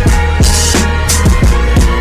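Background music with a steady drum beat over deep bass.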